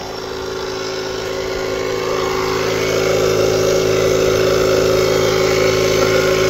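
Portable electric tyre inflator's small air compressor running steadily while pumping up a car tyre, a constant-pitch motor hum that grows louder over the first few seconds.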